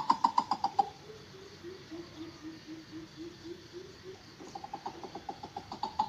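Greater coucal calls. A fast, loud series of pulsed notes breaks off about a second in and gives way to a slower run of deep hoots, about three a second. Near the end the fast series returns and builds again.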